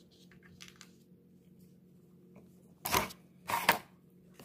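Hands handling and setting small toy-car parts down on a tabletop: a few faint clicks, then two louder knocks about half a second apart, roughly three seconds in.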